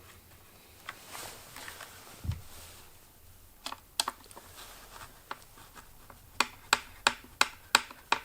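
A Phillips screw being driven in with a hand screwdriver. A few scattered clicks come first, then a regular run of sharp clicks, about three a second, in the last couple of seconds as the screw is turned in.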